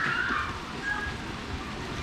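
Steady rain falling, an even hiss. A faint pitched call trails off just at the start, and a short tone comes about a second in.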